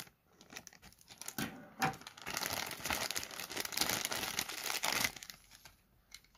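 Thin clear plastic toy bag crinkling as hands work it open and handle the figure inside. The crinkling thickens about two seconds in and dies away about five seconds in.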